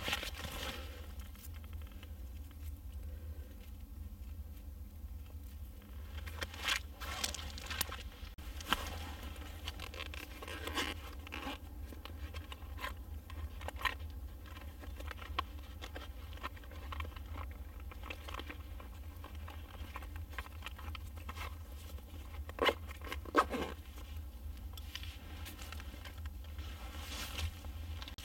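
Scattered light scrapes, knocks and rustles of split firewood and camp gear being handled by hand, with a couple of louder knocks near the end, over a steady low hum.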